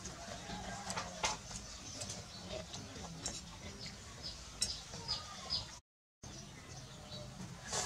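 Metal spoon and fork clinking and scraping against ceramic noodle bowls in scattered light taps, while the meal is eaten. The audio cuts out completely for a moment a little past the middle.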